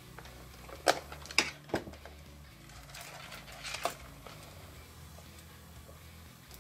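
A few light clicks and rustles of small plastic cable plugs and wires being handled at the plug sockets of an RC tank's circuit board: three clicks in the first two seconds, then a short scrape near four seconds.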